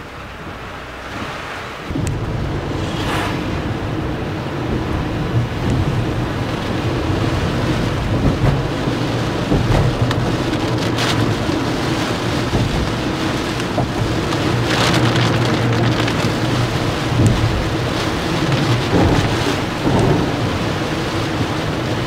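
Heavy typhoon rain on a car's windscreen and body over the steady low hum of the engine and tyres, heard inside the cabin. The sound steps up louder about two seconds in, and a few short louder swishes stand out.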